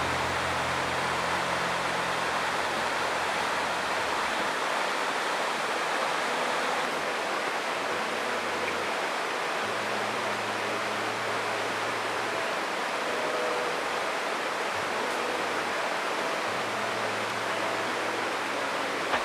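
Steady rushing noise of flowing water, like a mountain stream, with faint held tones underneath.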